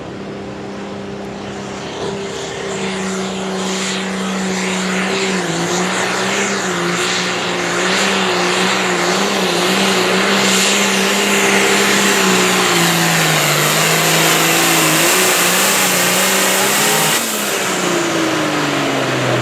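Pulling tractor's engine running at full throttle down the track, its pitch wavering and the sound growing louder as the run goes on. About two seconds before the end the throttle is cut and the engine winds down with a falling pitch as the pull ends.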